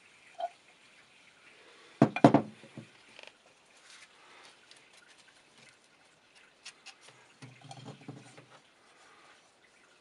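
A loud clatter of several knocks about two seconds in, then soft wet scraping and clicks of a putty knife spreading filler putty on cardboard.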